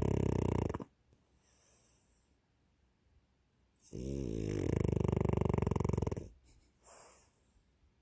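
French bulldog snoring in its sleep. One snore ends within the first second, a second snore of about two and a half seconds starts about four seconds in, and a short softer breath follows near the end.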